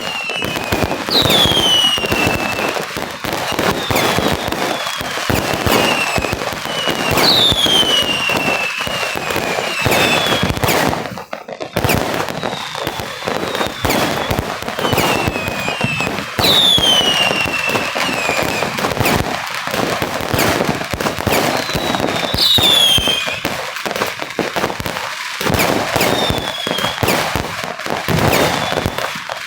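Fireworks going off in a dense, continuous crackle of rapid bangs, with a high whistle falling in pitch every several seconds. The crackle drops out briefly about eleven seconds in.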